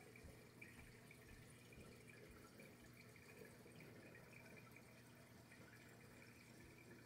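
Near silence: the faint steady hum and trickle of a running reef aquarium's water circulation.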